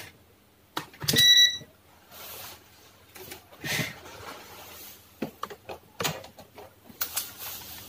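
A single short electronic beep, about half a second long, comes about a second in, with a sharp click at its start. Light clicks and rustles of handling follow.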